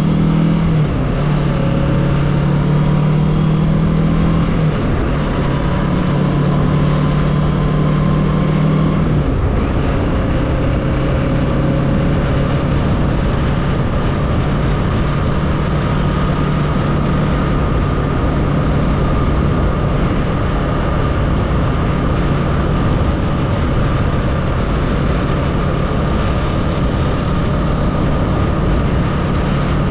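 Kawasaki Z650's parallel-twin engine running on the road at a cruise, heard from the rider's seat over a steady rush of wind noise. Its note shifts a few times in the first ten seconds, then holds steady.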